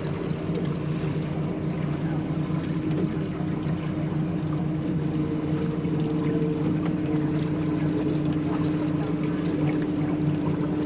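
A boat's outboard motor running steadily at low speed, a constant hum with an unchanging pitch.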